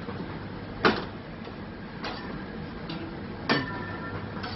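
Metal teppanyaki utensils clacking as they are flipped and caught: a few sharp clacks, the loudest about a second in and again about three and a half seconds in, over a steady background hum.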